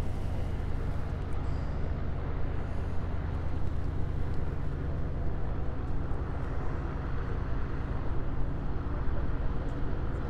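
De Havilland Beaver floatplane's Pratt & Whitney R-985 nine-cylinder radial engine and propeller running steadily at taxi power, a low, even drone.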